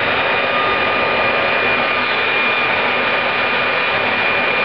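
Homemade turbojet built around a Caterpillar turbocharger, running at a steady speed. It makes a loud, even rush of air with a steady high whine from the compressor.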